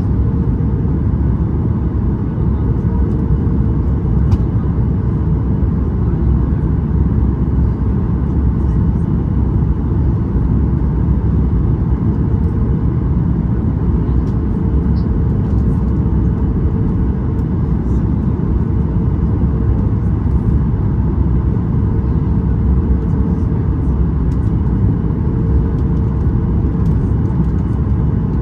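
Steady cabin noise of a Boeing 737 MAX 8 in flight: a loud, even low rumble of its CFM LEAP-1B engines and the airflow, heard from inside the cabin, with a faint steady hum that fades in and out.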